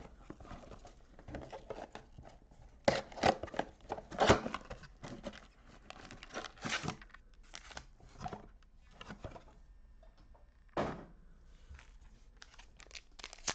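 Plastic wrapping and card packaging crinkling and tearing as a trading card box and its packs are ripped open by hand, in irregular bursts, loudest about three to four and a half seconds in.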